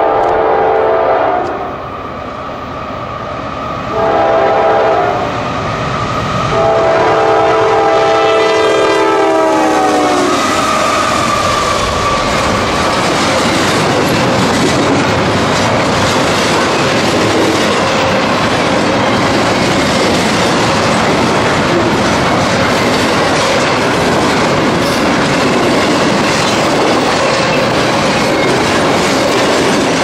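Freight locomotive air horn sounding for a grade crossing: a long blast ending in the first second or so, a short blast about four seconds in, and a final long blast that drops in pitch as the locomotive passes. After that, double-stack intermodal cars rumble and clack steadily over the crossing.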